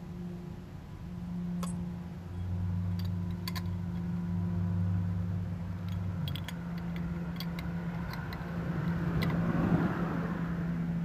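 Small metallic clicks and taps from an outboard carburetor being reassembled by hand, its metal body and small parts knocking together, over a steady low hum. A broad rush of noise swells and fades near the end.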